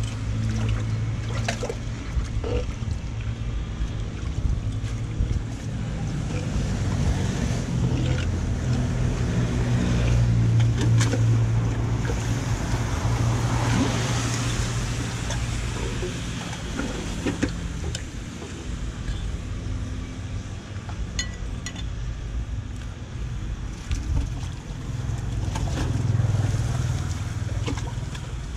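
Floodwater swirling and draining into a blocked curb culvert as it is being cleared, a steady rushing with a low rumble underneath. Scattered sharp knocks of a hammer striking debris and concrete at the drain mouth.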